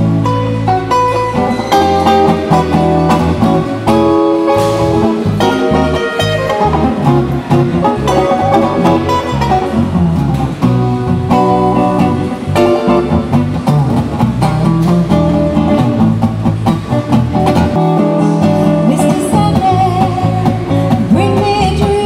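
Gitane DG330 Selmer-style gypsy jazz acoustic guitar playing an instrumental passage of quick, changing plucked notes over low bass notes. A woman's singing voice comes back in at the very end.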